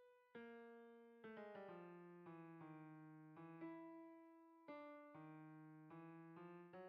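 Quiet background piano music: single notes and chords struck and left to fade, the notes coming quicker near the end.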